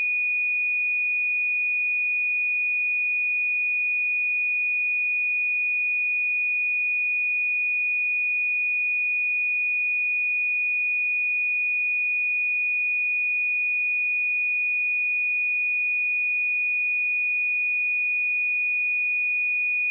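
Steady pure sine-wave test tone at 2464 Hz, one unchanging high pitch held without a break, used to check speakers and headphones.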